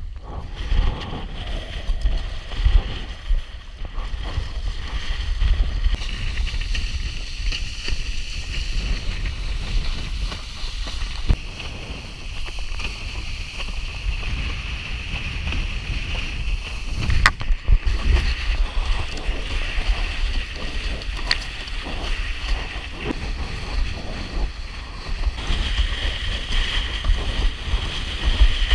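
Wind buffeting the microphone, a rumble that rises and falls, over the steady hiss and splash of a windsurf board skimming across choppy water, with a few brief knocks.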